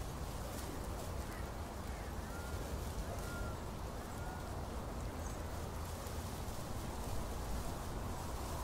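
Open-air fairground ambience: a steady low rumble of distant activity with faint scattered knocks, and a few faint short chirps two to three seconds in.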